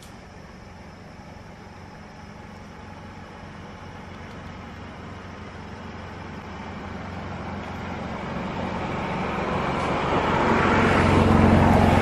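A motor vehicle approaching, its engine and road noise growing steadily louder and peaking near the end.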